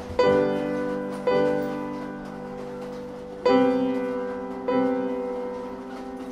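Solo piano playing slow, sustained chords: four chords are struck, and each is left to ring and fade before the next.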